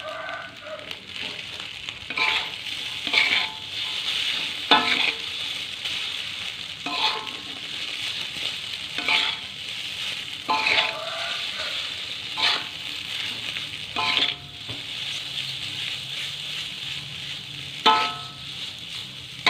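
Food sizzling in hot oil in a pan as it is stir-fried, with a utensil knocking against the pan every second or two, each knock ringing briefly.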